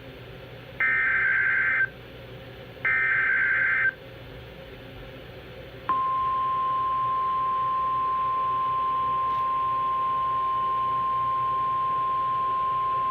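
NOAA Weather Radio's Emergency Alert System (SAME) header: the last two of three digital data bursts, each a second of harsh buzzy warble, then about two seconds later the long, steady single-pitch warning alarm tone begins and holds. The header and tone announce a new warning broadcast, here a tornado warning.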